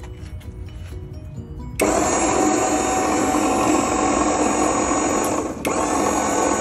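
Maxon liftgate's electric hydraulic power unit (DC motor driving the pump) starts suddenly about two seconds in and runs steadily, raising the gate, with a brief dip in level near the end. The reservoir has just been refilled with AW32 hydraulic oil.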